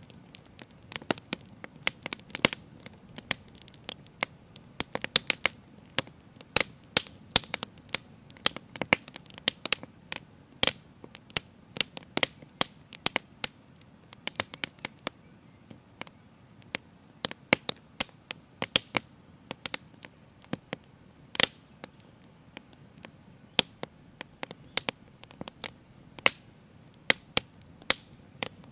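Wood fire crackling, with sharp irregular pops, often several a second, over a faint low background noise.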